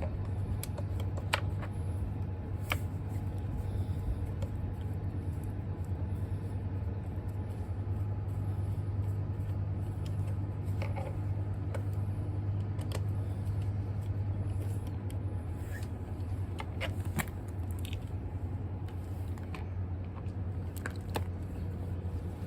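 A steady low hum runs throughout, with scattered sharp clicks and clinks of hand tools and small metal parts, a few seconds apart.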